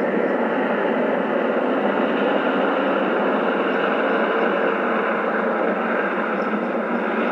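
Police helicopter flying over a city, a steady even noise of rotor and engine that holds at one level.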